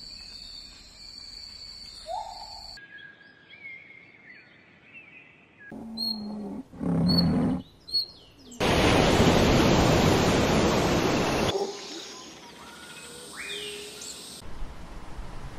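A run of wildlife sounds that switch abruptly from one to the next: birds chirping and whistling, a low pitched call near the middle, then a loud even rushing noise for about three seconds before the birdsong returns.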